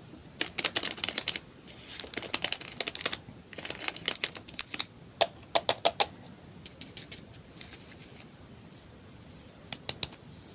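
Candy packaging being handled and unwrapped: crisp crackling and clicking of plastic wrappers, in quick bursts with short pauses between.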